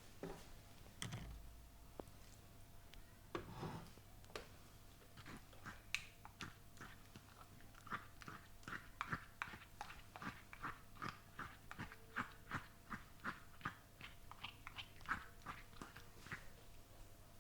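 Hands of a barber working over a head and face in a traditional Indian massage: a few soft rubbing sounds, then from about five seconds in a quick run of short, sharp wet clicks and smacks, about three a second, stopping shortly before the end.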